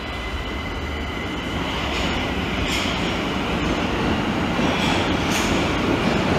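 Tokyo Metro Ginza Line train pulling out of an underground station and gathering speed, its rumble building steadily. From about two seconds in come pairs of wheel clacks over the rail joints.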